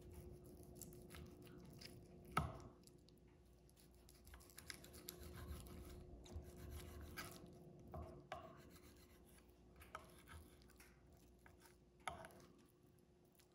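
Faint scraping and slicing of a knife trimming fat from raw beef steak, with the blade knocking on the wooden cutting board a few times, the sharpest knock about two and a half seconds in.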